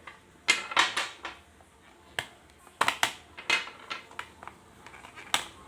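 Rechargeable 1.2 V batteries being pulled out of the slots of a plastic battery charger one by one and set down: about ten sharp clicks and clatters with short quiet gaps between them.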